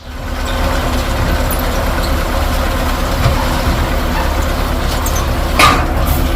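Farm tractor engine running steadily, with a short hiss about five and a half seconds in.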